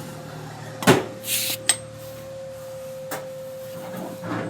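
Electric rickshaw wheel and drive turning with a steady thin whine over a low hum. There is a sharp knock about a second in and a few fainter clicks later: the noise from the wheel that is being traced.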